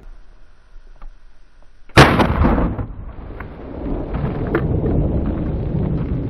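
A single sharp blast about two seconds in, followed by several seconds of low rumbling that swells again near the end.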